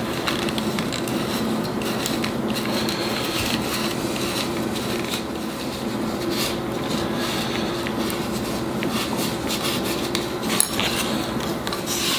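Light clicks and taps from a plastic HO-scale model freight car being handled on a countertop, over a steady background hum.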